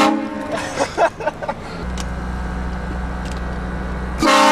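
Train horn fitted to a car, blown in short blasts: one ends just after the start and another begins near the end, each a loud chord of several tones. Between them come a few brief sharp sounds, then a steady low hum of the car's engine.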